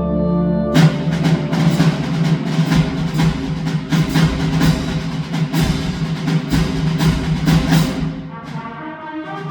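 Concert band playing: a held chord gives way about a second in to a loud percussion-driven passage of repeated drum strikes with the full band, which thins out near the end as sustained brass chords return.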